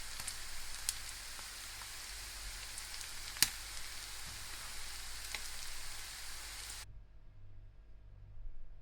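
Beef frying in oil in a pan: a steady sizzle with scattered crackling pops, one sharper pop about three and a half seconds in. The sizzle cuts off abruptly near the end, leaving a faint low hum.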